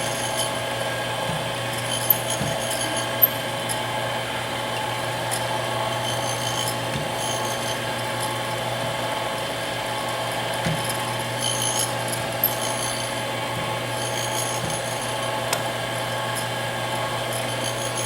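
Delta Milwaukee surface grinder running under power on its 110-volt single-phase motor, a steady hum with a few sharp clicks about two and three seconds in and again about twelve seconds in.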